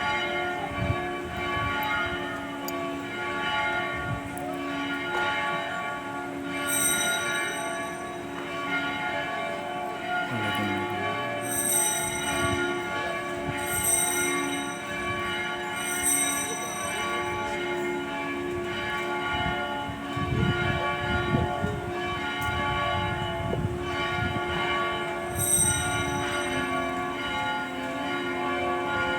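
Church bells ringing at the consecration of the Mass: several bells clanging together in a continuous, pulsing wash of overlapping tones, with a few sharper, brighter strikes standing out now and then.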